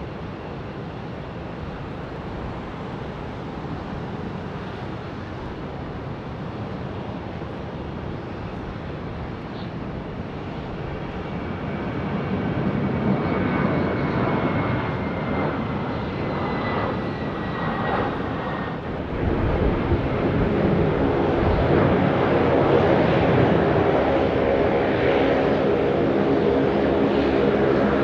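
Twin-engine jet airliners on landing approach. First a Boeing 777's engine noise builds with a slowly falling high whine. About two-thirds of the way through there is a sudden jump to a louder, steadier jet drone with several held tones, the Airbus A330 that follows.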